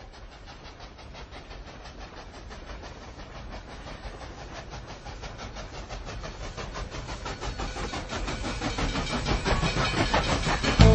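Rumbling, crackling sound-design riser that swells steadily louder, building to a sudden loud hit near the end.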